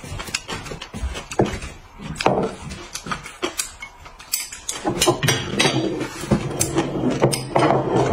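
Chopsticks clicking and scraping against porcelain plates and bowls, with the clatter of a heavy plate of food being set down on a wooden table.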